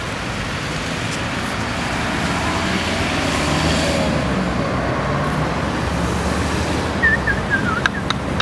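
City street traffic: cars driving by on the road, the noise swelling as a vehicle passes through the middle. Near the end, a run of short, high-pitched chirps.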